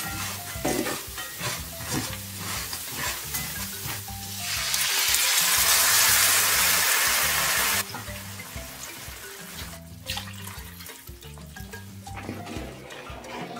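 Rice and almonds frying in oil in a pan, stirred with a wooden spoon. About four seconds in, water is poured into the hot pan, and a loud sizzling rush lasts about three and a half seconds before cutting off abruptly. Background music plays throughout.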